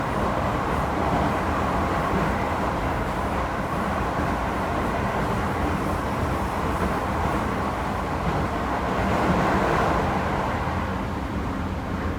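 Toei 10-300 series electric train running, heard from inside the car: a steady rumble of wheels and running gear that swells slightly about nine seconds in.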